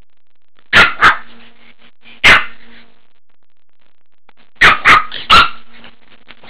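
Pekingese puppy barking, six short sharp barks: two quick ones near the start and a third a second later, then three more in quick succession about four and a half seconds in.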